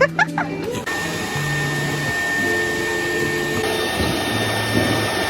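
Steady rushing noise of a small electric blower motor with a thin steady whine, starting about a second in, its upper hiss shifting slightly a little before four seconds.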